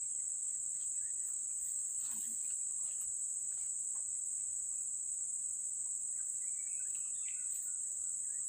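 Insects droning steadily at a high pitch, with a few faint ticks.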